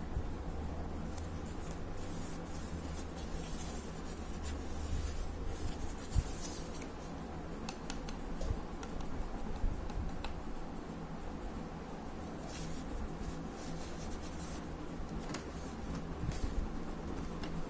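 Paper and plastic packaging handled by hand: rustling and sliding, with a few sharp light clicks and taps, over a steady low room hum.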